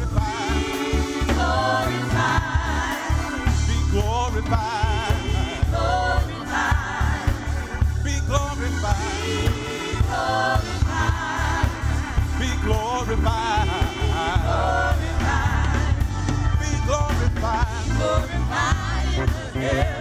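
A gospel praise team singing with vibrato over a band with a heavy bass line.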